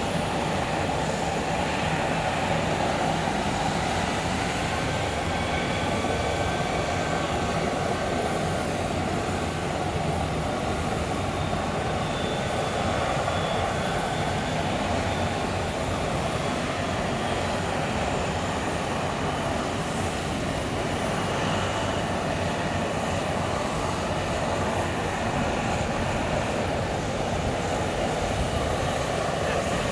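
McDonnell Douglas MD-80 jet running on the ramp: a steady rumble and hiss with a faint high whine over it, while the airliner is moved on a tug's towbar.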